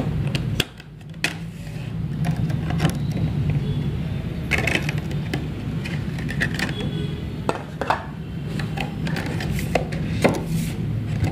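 Cardboard box and packaging of a Sony SRS-X11 speaker being opened and handled: scattered clicks, scrapes and rustles over a steady low hum.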